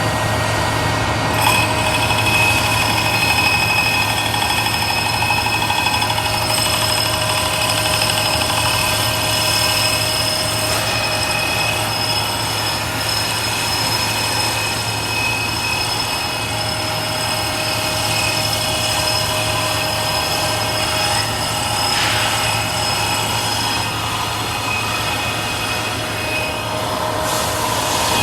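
Manual metal lathe running: a steady machine hum with a whine of several steady tones above it, the higher tones setting in about a second and a half in.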